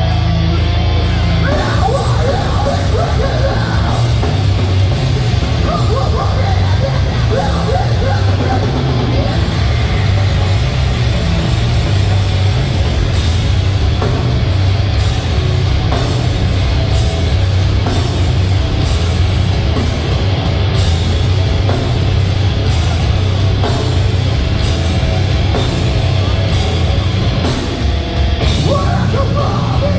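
Live metalcore band playing loudly: distorted guitars, bass and drum kit in a dense, unbroken wall of sound.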